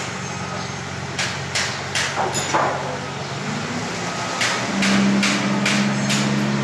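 Hammer blows on a construction site, struck in quick runs about two and a half a second, four in the first run and five in the second. Under them an engine hums steadily, getting louder about two thirds of the way through.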